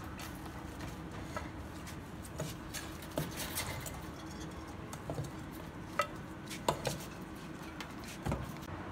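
Irregular clinks and knocks as a scoop and bowl strike a wire-mesh rabbit cage, with the loudest knocks a little past the middle.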